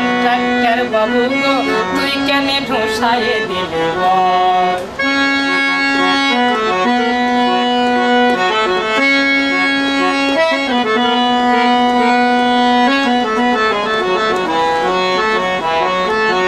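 Hand-pumped Indian harmonium playing an instrumental interlude between sung verses: held reed notes stepping through a melody, with a short break about five seconds in.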